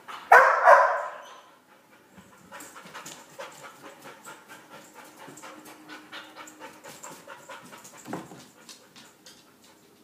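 Dog panting hard and fast, about three to four breaths a second: the stress panting of a dog with separation anxiety left alone. A short loud burst comes about half a second in, and a single thump just after eight seconds.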